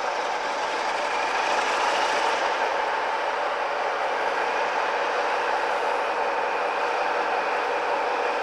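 Class 47 diesel locomotives' Sulzer engines running steadily.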